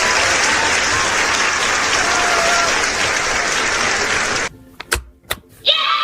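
A crowd of children cheering and clapping, a loud steady din of shrieks and applause that cuts off abruptly about four and a half seconds in. A couple of clicks follow, then a burst of high children's shouting begins just before the end.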